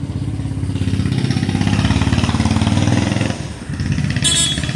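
Diesel engine of a fire-and-rescue pickup running close by as the truck pulls forward, a steady low rumble with a regular firing beat that eases off briefly about three and a half seconds in. A short high-pitched sound cuts in near the end.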